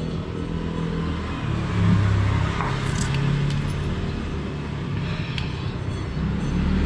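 A motor vehicle engine running, its pitch shifting up and down with a brief rise about two seconds in. A couple of light metallic clicks sound over it.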